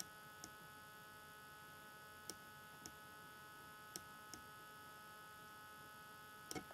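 Near silence: a steady electrical hum in the recording, with a few faint, scattered clicks as digits are written on screen.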